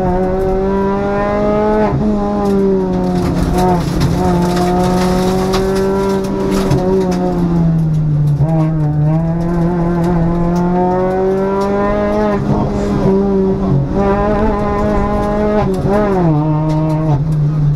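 Citroën DS3 R1 rally car's engine heard from inside the cabin, running hard at high revs. Its pitch drops sharply and climbs again about five times as the car brakes and shifts for the bends.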